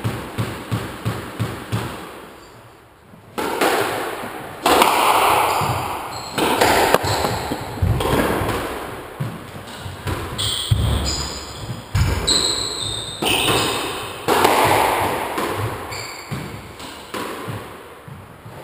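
Squash ball bounced on the wooden floor about three times a second before the serve, then a rally: sharp cracks of racket strikes and the ball hitting the court walls, each ringing briefly, with shoes squeaking on the floor midway. The rally stops about a second before the end.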